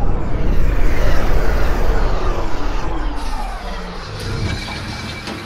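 Time-travel transition sound effect: a loud rushing noise with a whine that falls steadily in pitch, fading out over the last couple of seconds.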